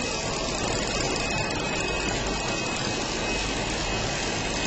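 DTH-320 multilayer label laminating machine running: a steady even rushing mechanical noise with a faint steady high whine.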